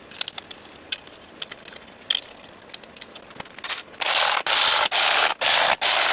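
Hand ratchet running new bolts into an intake manifold, with a series of quick ratcheting strokes about half a second each starting about four seconds in. Before that come a few light clicks of hardware being handled.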